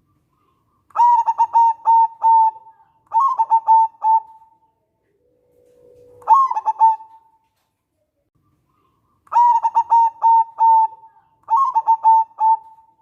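Zebra dove (perkutut) cooing in five phrases. Each phrase is a quick run of short notes that ends in a drawn-out note, and the phrases are separated by silent gaps. A low, steady note leads into the third phrase, just before the middle.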